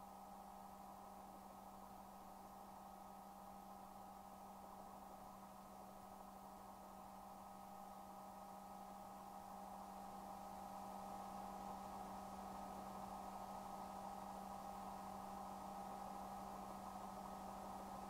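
Faint steady hum with a few steady tones over a low hiss, getting slightly louder after about ten seconds: the quiet line of a helicopter's radio and intercom audio feed between transmissions.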